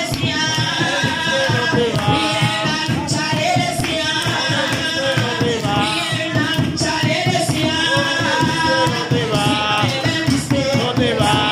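Church worship song: singing amplified through a PA speaker over steady musical accompaniment, with a woman leading on a handheld microphone.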